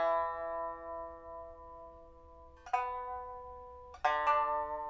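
A 1992 Zhang Xibao pipa of old rosewood with white ox-horn fittings, newly refitted with a replacement soundboard and bamboo frets, with a steel first string and copper lower strings. It is played slowly: a struck chord rings and dies away, another sounds about two and a half seconds in, then two more come in quick succession near the end.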